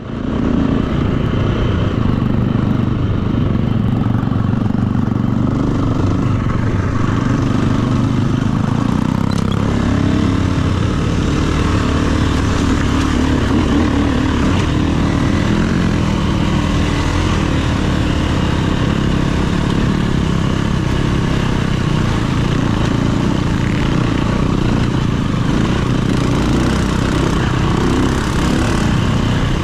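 Dirt bike engine running under way on a rocky trail, heard from on board, its revs rising and falling with the throttle.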